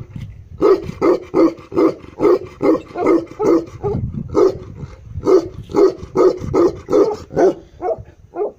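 Tibetan Mastiff barking deep, rhythmic barks, about two a second, with one short pause about halfway through.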